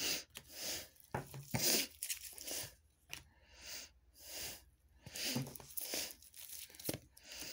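A woman sniffling and snuffling through a congested nose from allergies, a run of short noisy breaths coming roughly every half second to second.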